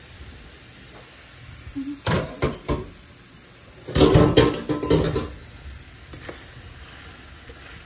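Serving utensil knocking against a glass bowl and plastic meal-prep containers as sausages are dished out: a few sharp clicks about two seconds in, then a louder clatter about four to five seconds in. A pan of sliced zucchini and squash sizzles faintly underneath.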